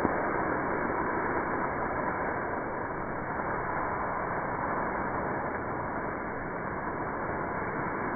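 Ouzo flambé flames burning off a steel fire plate with a steady rushing sound. There is a brief louder flare right at the start.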